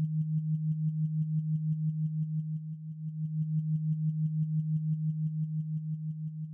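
Background electronic music: a low synthesizer tone held steady and pulsing about six times a second, with faint high beeps in time with the pulses.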